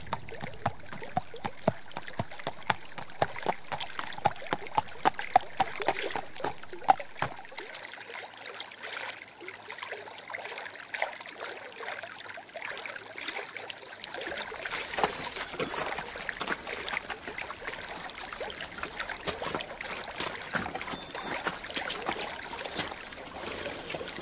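Hoofsteps of a walking horse crunching on a gravelly, leafy path, about two steps a second, for the first seven seconds; then a small stream trickling and running over rocks.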